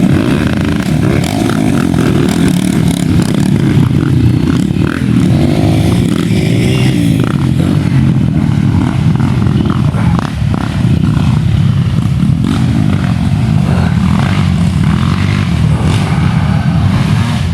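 Several motorcycles running close by, their engines loud and continuous.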